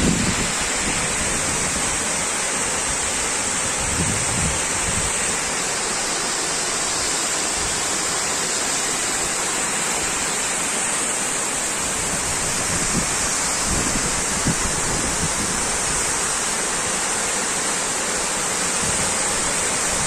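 Steady rush of a large, high waterfall, with a few brief low buffets of wind on the microphone.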